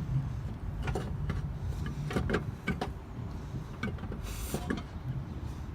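Tools, lug bolts and a spare wheel being handled during a tire change: a run of irregular metallic clicks and knocks, with a short scraping rush about four seconds in, over a low steady rumble.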